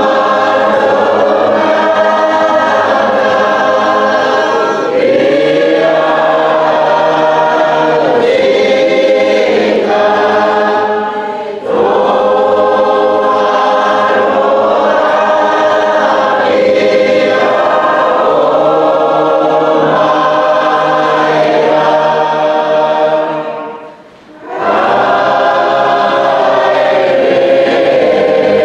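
A choir of many voices singing a hymn in harmony, with held notes. The singing breaks off briefly twice, the longer pause about 24 seconds in, before the next phrase starts.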